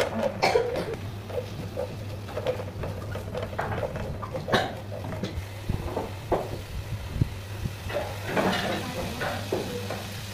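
Kitchen handling sounds: a wooden spatula scraping and knocking in a nonstick wok, with scattered clicks and knocks of utensils and a bowl over a low steady hum.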